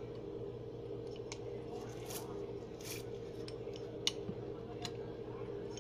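Hand-held metal lime squeezer pressing limes: a few soft clicks from its hinged metal cups and a couple of short hissing sounds, over a steady low hum.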